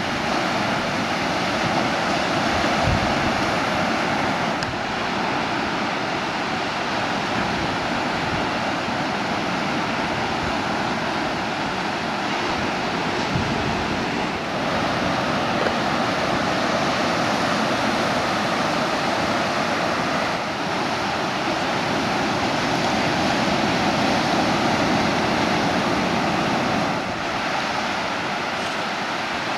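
Ocean surf: small waves breaking and washing up the beach in a steady rush, its level shifting slightly a few times.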